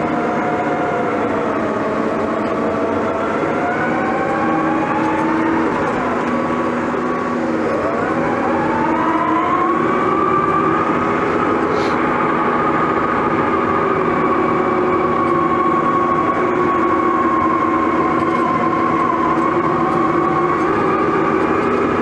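Case 1150M bulldozer working under load, heard from inside the cab: its diesel engine and drive make a steady whine that sags in pitch about six seconds in, climbs back up, then holds steady.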